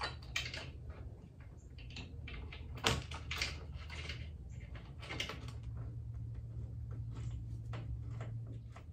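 Short clicks, knocks and rustling of the Jeep Wrangler's rear hardtop window glass being handled and fitted into its hinges, with one sharper knock about three seconds in, over a low steady hum.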